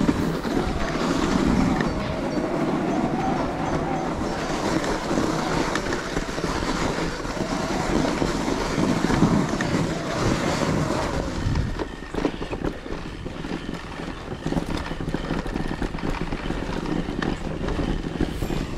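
Mountain bike rolling over a rough gravel track: tyres crunching and the bike rattling, with wind on the microphone. The noise is dense for about the first ten seconds, then quieter with separate knocks.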